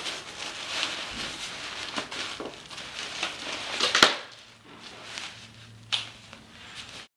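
Rustling and crinkling of a collapsible photo reflector's silver and black fabric as its spring frame is twisted and folded down, with one sharp snap about four seconds in and a smaller click near the end.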